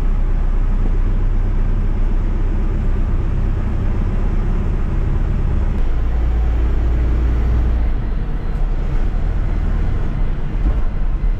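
Diesel engine of an Ashok Leyland sleeper coach running steadily as the bus moves off in traffic, heard from inside the driver's cab. Its rumble deepens for a couple of seconds about six seconds in, then evens out again.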